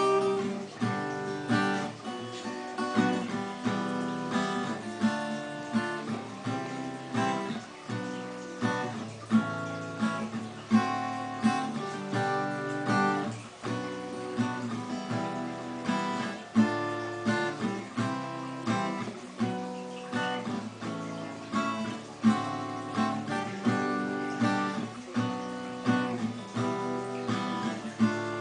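Acoustic guitar strummed in a steady rhythm, chord after chord with regularly accented strokes, with no singing.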